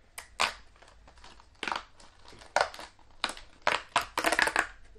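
Small cardboard biscuit box torn open by hand: a run of short crackling tears and crinkles, the loudest cluster near the end.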